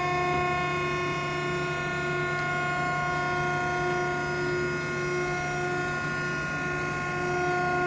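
Cardboard baler's hydraulic pump motor running with a steady hum, driving the ram through a full-stroke cycle.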